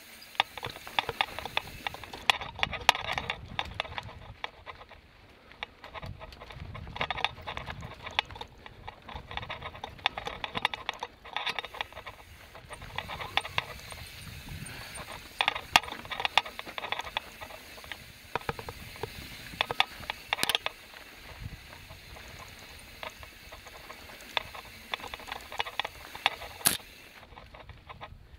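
Mountain bike clattering along a rough trail: a dense, irregular run of clicks, knocks and rattles from tyres, chain and frame over a low rumble, with a few sharper knocks.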